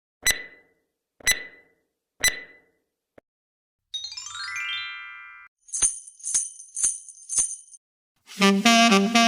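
Jingle bells shaken in three sharp strokes about a second apart. A quick downward sweep of bright chime tones follows, then four more short, bright bell shakes. A saxophone starts playing near the end.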